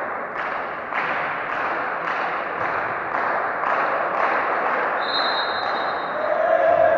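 Rhythmic clapping, about two claps a second, echoing in a sports hall; about five seconds in, a referee's whistle sounds one steady note for about a second, and a shout rises near the end.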